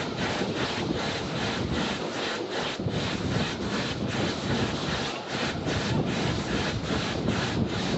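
Tram running along the track: a steady rushing noise that pulses evenly about three to four times a second, with wind on the microphone.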